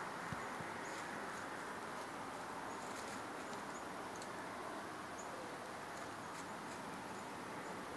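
Steady outdoor hiss with a few faint, scattered crackles of a whitetail buck stepping in dry fallen leaves.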